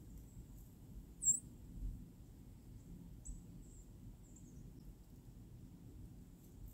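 A few very high, thin chirps from a small bird. The loudest is a quick rising-and-falling note about a second in, and the others are fainter, one near the end sliding down. A low rumble runs underneath.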